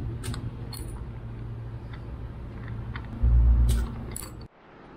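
A few scattered metallic clicks and clinks of a socket wrench working the bolts on a Yamaha outboard's powerhead, over a steady low hum. A loud low rumble comes in about three seconds in, and the sound cuts off suddenly near the end.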